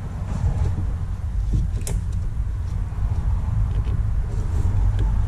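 Pliers working a spring hose clamp on the coolant hose at the thermostat housing, with a sharp metal click about two seconds in and a few lighter clicks, over a steady low rumble.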